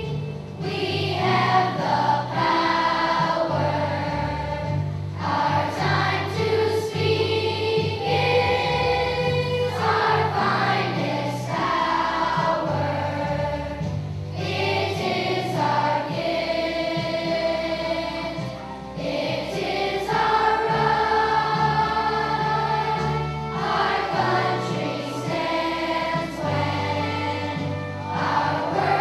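Children's choir singing a song in long held phrases, with instrumental accompaniment underneath.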